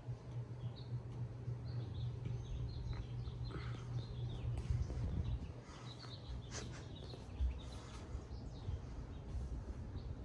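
Casablanca San Marino ceiling fan motor humming steadily on its top speed, turning slower than it should because of a weak run capacitor. Birds chirp on and off in the background.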